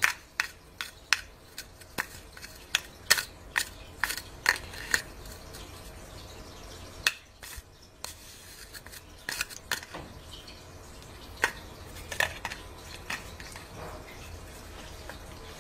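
Ragdoll cat biting and chewing a plastic drinking straw, making a run of sharp clicks and crunches. They come about two a second for the first five seconds, then in scattered clusters.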